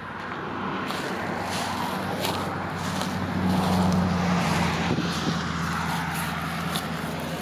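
A road vehicle passing by, its noise swelling to a peak about halfway through and then fading, over a steady low hum, with a few faint clicks.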